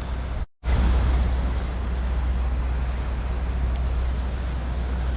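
Steady rush and low rumble of water pouring through a dam spillway, cutting out completely for a moment about half a second in.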